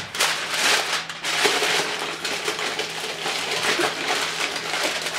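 Aluminum foil crinkling and crackling as it is pulled and pressed down over a baking pan to cover it.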